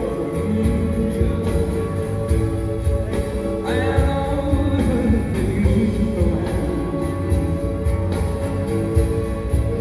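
Live concert music played through a hall PA, heard from the audience: a steady beat with acoustic guitar and a man singing.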